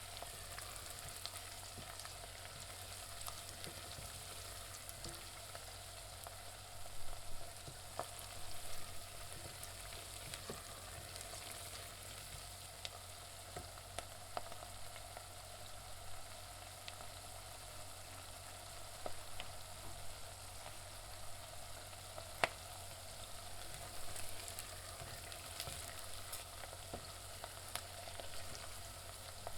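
Onions frying in oil in a pan: a steady sizzle with scattered sharp crackles and pops, and a few louder spells of sizzling about 7 to 9 seconds in and again near 24 seconds.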